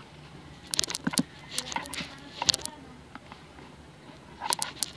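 Plastic bag crinkling and crackling in bursts as homemade flour-and-water slime is squeezed and kneaded inside it, with three clusters of crackles spread across the few seconds.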